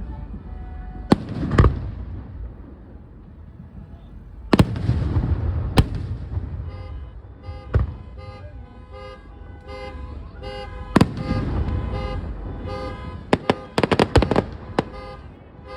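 Fireworks going off: scattered sharp bangs, then a quick run of bangs near the end. From about six seconds in, a car alarm sounds under them with a repeating on-off pattern of tones.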